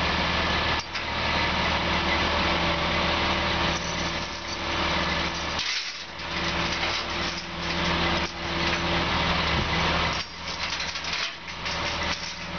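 Mobile crane's engine running steadily as it lifts a heavy load, a constant hum under a broad noisy wash that briefly drops away a few times.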